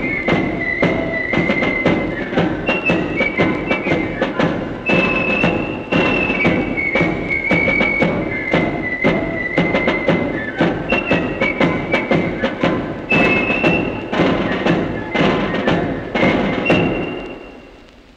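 Corps of drums playing a march: flutes carry a high melody over snare and bass drums. The tune ends about seventeen seconds in and rings away.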